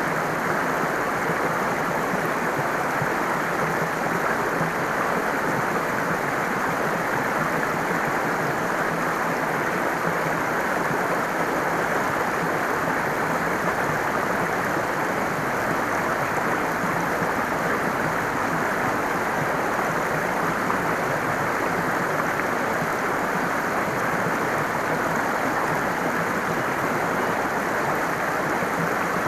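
Water of a flowing stream rushing steadily, without pause or change.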